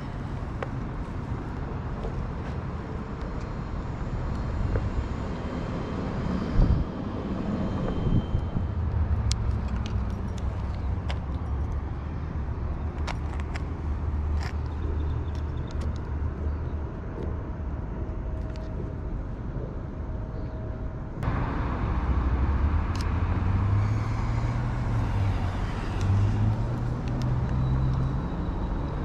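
Street ambience with motor traffic: a steady low rumble of vehicles on the road, with a few short sharp clicks in the middle stretch. The sound changes abruptly about 21 seconds in, then the rumble carries on.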